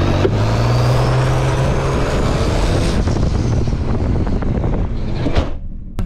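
Minivan engine fitted with a cheap eBay turbocharger running hard, with a thin turbo whistle climbing steadily in pitch over the first three seconds. The sound cuts off suddenly about five and a half seconds in.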